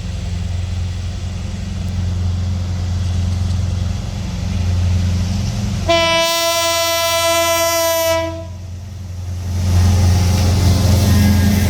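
Rail vehicle's diesel engine running with a steady low hum, and about six seconds in a single train horn blast on one steady pitch, lasting about two seconds. The engine sound grows louder in the last two seconds.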